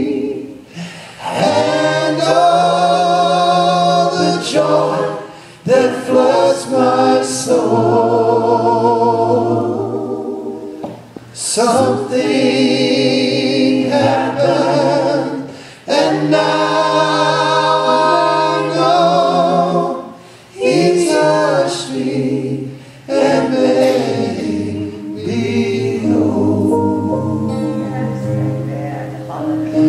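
A slow worship song sung by voices holding long, wavering notes over sustained low keyboard notes, in phrases of a few seconds with short breaks between them.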